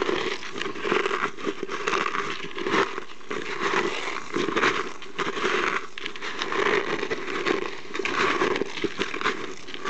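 Cooked chicken eggshells being crushed by hand: a dense, continuous crackling and crunching of brittle shell, coming in repeated squeezes.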